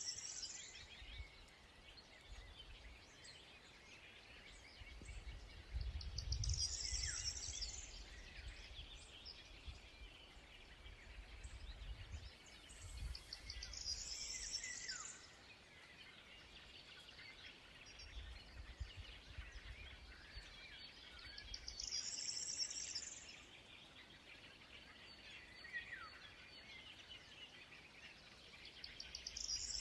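Birdsong in the open air: a high, fast trill repeats about every eight seconds, with a few short falling whistles between. A low rumble of wind runs underneath.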